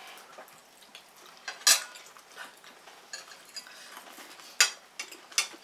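Knives and forks scraping and clinking on ceramic dinner plates while cutting crispy breaded chicken schnitzel, with a few sharp clinks, the loudest near the middle and twice near the end.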